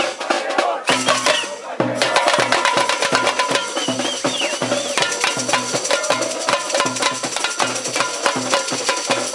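Student cheering-section drum band: large drums keep a steady beat of about two strokes a second under quick, sharp tamborim and snare strikes, with the crowd singing along.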